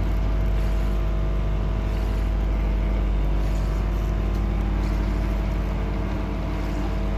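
Boat's engine running steadily, a continuous low drone.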